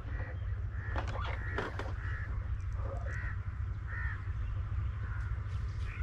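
Crows cawing repeatedly, short harsh calls about once a second, over a steady low rumble.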